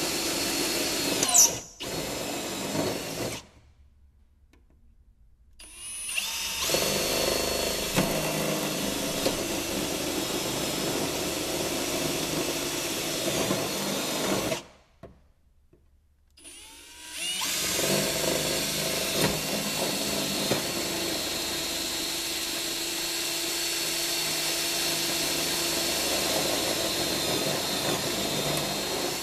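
Cordless drill running under load as it bores 3/16-inch holes through a snowmobile's tunnel. It runs in three long stretches with pauses of a couple of seconds between them, and gives a sharp squeal about a second and a half in.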